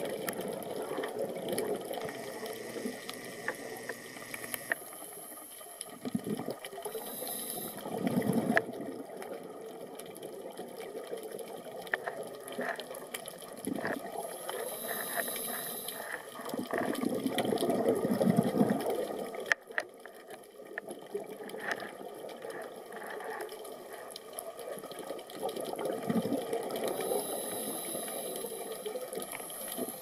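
Scuba diver breathing through a regulator underwater: a hiss on each inhalation and a rush of exhaled bubbles, a few breaths several seconds apart.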